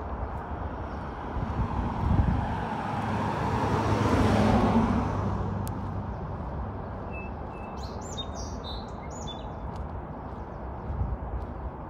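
A small SUV driving past on the road, its tyre and engine noise swelling to a peak about four seconds in and then fading away. A few bird chirps follow a few seconds later.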